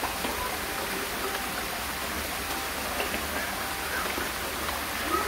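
Steady rush of running water at a koi pond.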